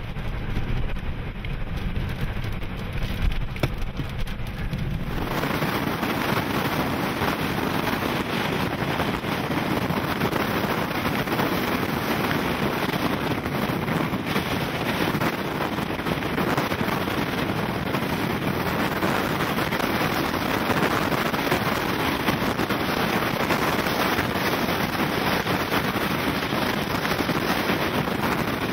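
Strong inflow wind of a violent wedge tornado rushing and buffeting over the microphone, a loud steady roar of noise. About five seconds in it swells from a duller rumble into a full, hissing rush.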